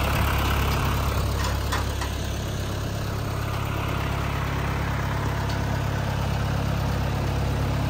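John Deere 2040 tractor's diesel engine running steadily at low speed as the tractor pulls slowly away with a trailer in tow.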